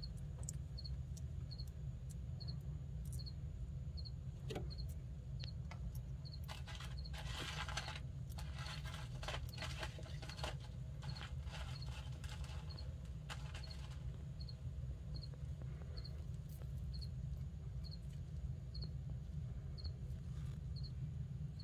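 A cricket chirping in short, even, high chirps about twice a second over a low steady hum. From about six to fourteen seconds in comes a spell of scratchy rustling and clicking: a fire skink moving through bark-mulch substrate.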